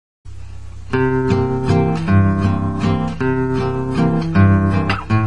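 Strummed acoustic guitar playing a song's instrumental opening. It comes in softly and grows louder about a second in, with steady chords and regular strums.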